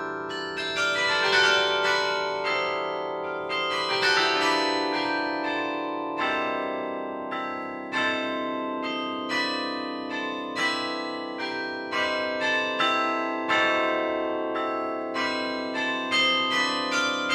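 Carillon of St. Rombout's Tower playing a piece: a steady stream of struck bell notes, several a second, each ringing on and overlapping the next, with lower bells sounding long beneath the melody.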